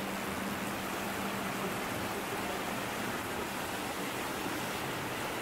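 Shallow woodland stream rushing over rocks in small rapids: a steady, even rush of water.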